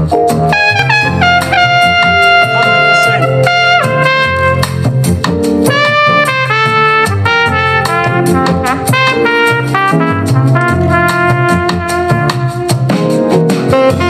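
JBL Tuner 2 portable Bluetooth speaker playing brass-led jazz at full volume, held horn notes over a steady beat.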